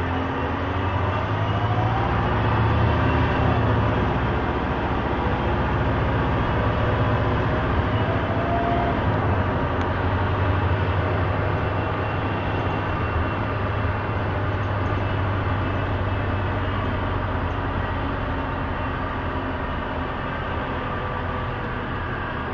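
Cabin noise inside a 1999 Orion V city bus under way: a steady low engine and drivetrain drone with road and body noise, and a faint whine rising in pitch in the first few seconds.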